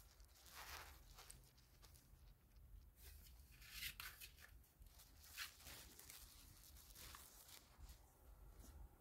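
Faint rustling and crinkling of puppy pads as husky puppies move and paw about on them, in a few short scuffs.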